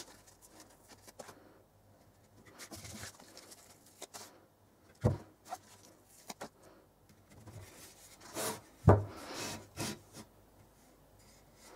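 Handling sounds from fitting adhesive pads to a wooden knife stand: rustling as the pads and their backing paper are peeled and pressed on, light clicks, and two sharp knocks as the wooden stand is set on the bench, one about halfway through and a louder one near the end.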